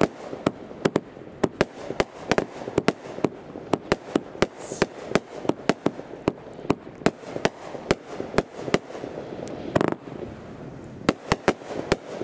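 Consumer firework finale cake firing brocade shells in rapid succession: sharp launch reports about three a second over a steady hiss. Near ten seconds comes one longer, louder burst, then a short pause and a few final shots of the finale row.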